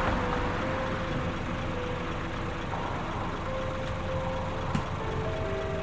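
Combine harvester running at work in the field: a steady engine and machinery drone, with one short knock near the end.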